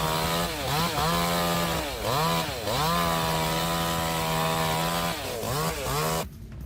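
A chainsaw running at high revs, its pitch dipping briefly several times as it bogs in the cut and revs back up. It stops abruptly near the end.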